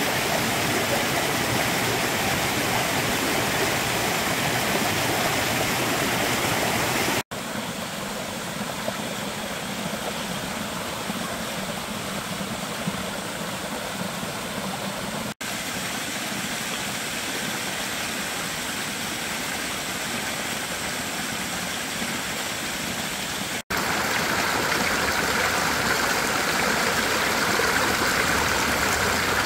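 Small rocky mountain stream rushing over stones and little cascades, running after a rain shower. The water noise is steady, broken by three brief dropouts at cuts, about 7, 15 and 24 seconds in; it is louder in the first and last stretches and softer in between.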